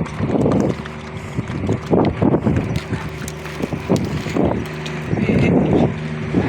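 A steady engine hum, with irregular gusts of wind buffeting the microphone.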